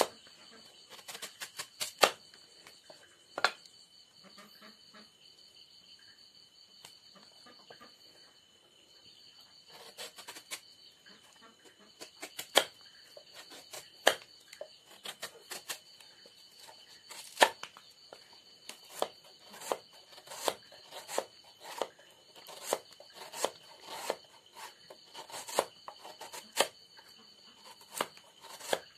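Kitchen knife slicing a fresh bamboo shoot into thin slices on a chopping board: a string of short, sharp cuts and taps against the board. A few at first, then a pause of several seconds, then about one or two a second.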